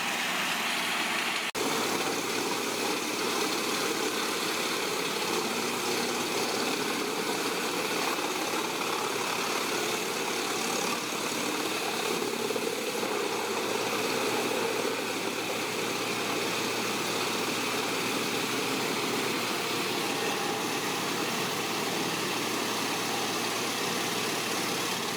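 Large diesel-powered wood trunk crusher (horizontal grinder) running steadily, its engine giving an even, continuous din with a brief break about a second and a half in.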